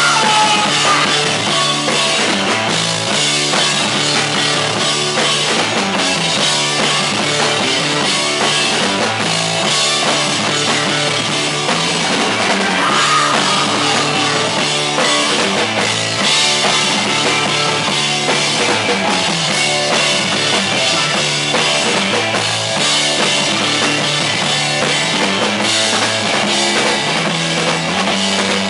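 Rock band playing live at full volume, a driving drum kit under loud amplified instruments, with a punk-rock edge.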